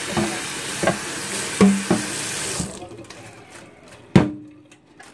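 Kitchen tap running into a stainless steel sink as hands rinse something under the stream, with a few light knocks; the water is shut off under three seconds in. A single sharp knock comes about a second later.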